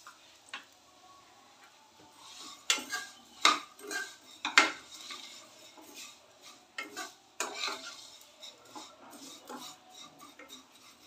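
Metal spatula stirring and scraping vermicelli being fried in a metal kadhai, with a series of sharp clinks and scrapes against the pan. The clinks are loudest about three to five seconds in.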